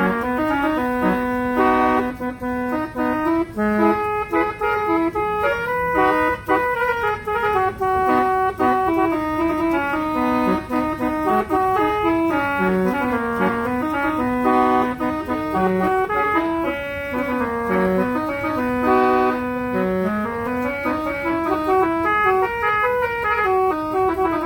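Multi-tone 'telolet' vehicle air horn playing a continuous tune, with held notes that step and glide up and down.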